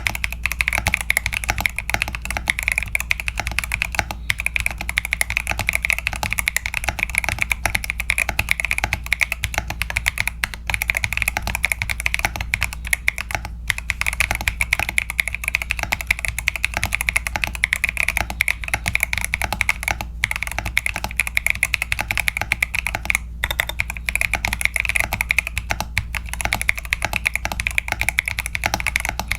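Mechanical keyboard with tactile switches and PBT keycaps being typed on quickly and continuously, a dense stream of keystroke clacks with only a few brief pauses.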